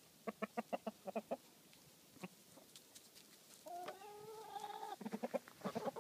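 Chickens clucking as they forage for bugs: a quick run of short clucks, then one longer drawn-out call about four seconds in, and more rapid clucking near the end.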